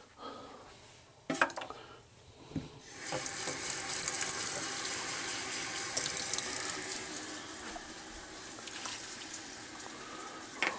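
Kitchen tap running into a plastic measuring cup in a stainless steel sink, starting about three seconds in after a few knocks of handling, a steady rush of water.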